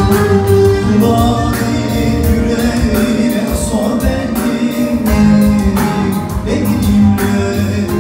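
Band music with a steady beat and sustained pitched notes, loud and continuous.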